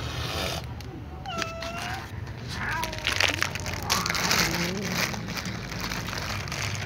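Domestic cats meowing: a few short meows one after another, with brief rustling noises between them.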